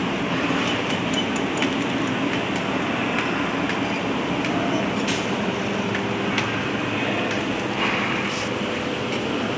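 Lathe running steadily with a machine hum and the noise of cutting, with a few short sharp clicks scattered through it.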